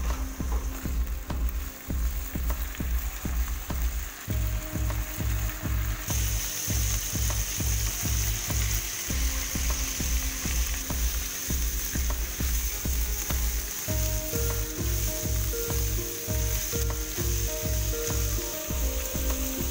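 Beef pieces frying in hot oil in a wok, sizzling, with spatula stirring and onions going in; the sizzle grows louder about six seconds in. Background music with a steady beat plays underneath.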